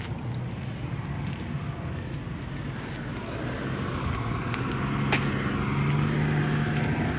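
Parked truck's diesel engine idling with a steady low hum, growing louder about halfway through as it is approached.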